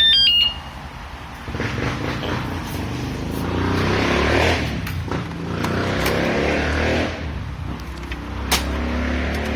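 A wsdcam wireless bike alarm gives a short, loud stepped electronic chirp and cuts off. From about a second and a half in, a motor vehicle runs nearby, getting louder and softer.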